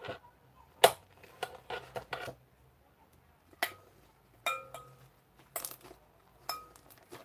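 A string of irregular clicks and clinks from small hard objects handled on a table, a few strikes leaving a brief ringing tone.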